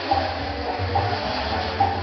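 Fireworks on a castillo tower burning with a steady rushing hiss of sparks. Under the hiss, a band's low bass notes move in steps.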